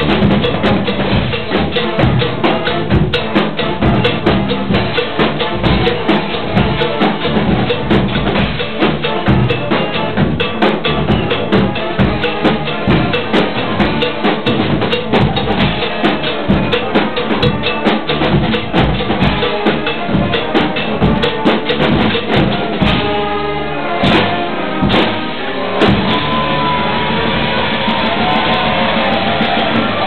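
A live brass street band's drum section plays a driving beat on bass drum and snare. About 26 seconds in, the beat stops and a steadier sound takes over.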